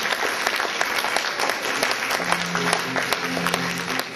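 Theatre audience applauding, dense steady clapping. About halfway through, a few sustained low music notes start up beneath it.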